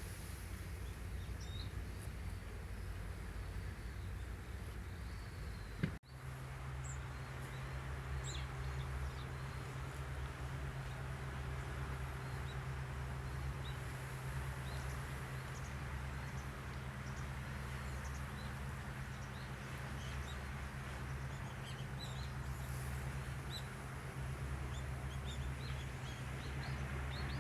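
Outdoor ambience: a steady low rumble with scattered faint bird chirps. There is a brief click and momentary dropout about six seconds in.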